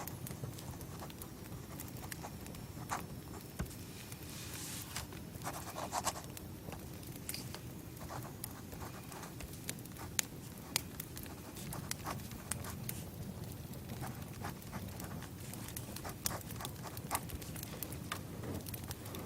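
Crackling campfire: irregular sharp pops and crackles over a steady low rumble.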